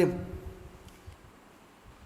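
A pause in a man's speech: the tail of his last word fades out in the first half second, then only faint room noise with a low hum.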